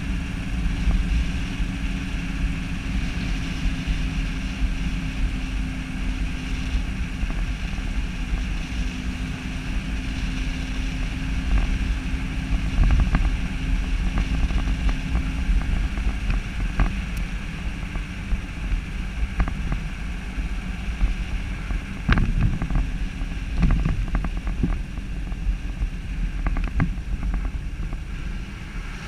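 A vehicle driving on wet pavement: the engine runs steadily under wind buffeting the microphone, with scattered sharp clicks and knocks about two-thirds of the way through.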